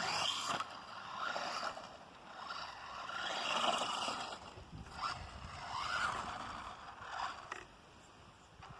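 Redcat Volcano 18 electric RC monster truck driving in several short bursts, its motor and gears whining up and down with the throttle over a scraping noise.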